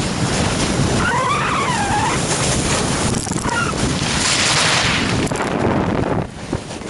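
Wind rushing over the microphone of a camera carried by a snowboarder, with the hiss of a snowboard edge scraping over packed snow as he carves. The scraping grows stronger about four seconds in, and the overall noise drops off near the end. A short wavering whistle-like tone sounds about a second in.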